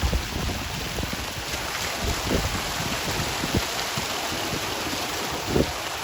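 Steady rushing noise, with a few faint short knocks low down.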